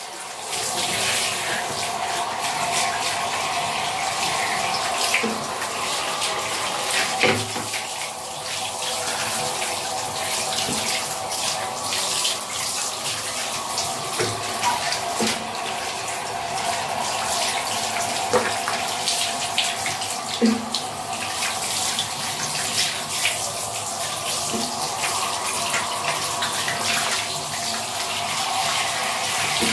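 Handheld shower head spraying water over a small dog's wet coat onto a tiled floor: a steady hiss of running water. A few short, faint sounds come through over the water.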